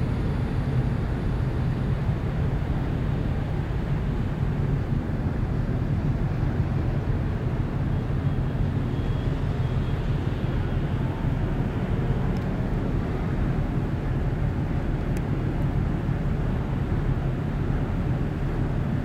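Steady low rumble of the Shin Nihonkai Ferry car ferry Lavender under way, heard from its open upper deck, with wind noise mixed in.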